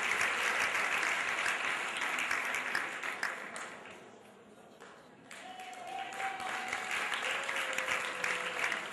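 Audience applauding; the clapping dies away about four seconds in, then a fresh round of applause starts about a second later.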